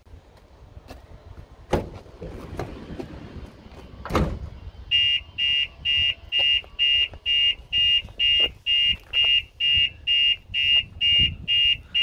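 A van's sliding side door rolls open and bangs against its stop about four seconds in. About a second later the Starline alarm siren triggers with a high, steady beeping, about two and a half beeps a second: the alarm has detected the door being opened while the system was armed.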